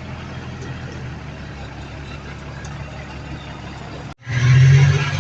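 Heavy diesel earthmoving machinery running steadily with a low, even hum. About four seconds in, the sound drops out for an instant and comes back louder.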